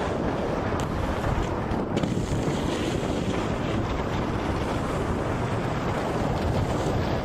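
Steady wind buffeting a moving microphone, mixed with the hiss and scrape of snowboards sliding over packed snow.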